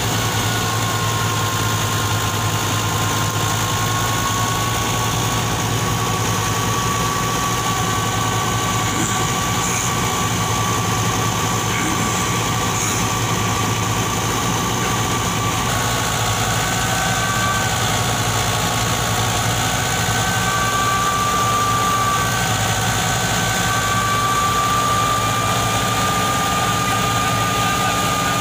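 Fiat 640 tractor's diesel engine running steadily under heavy load, driving a wheat thresher, with a steady high whine over the low drone. The whine shifts slightly in pitch about halfway through.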